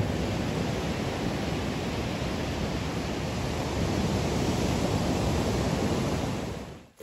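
Steady rush of surf with wind buffeting the microphone, fading out near the end.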